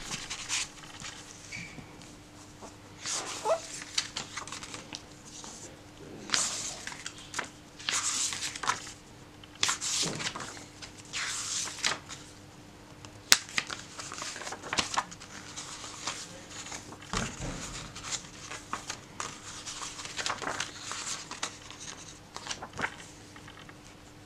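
Paper pages of a hardcover picture book being turned one after another: repeated short rustles and swishes of paper, with a sharp click about halfway through.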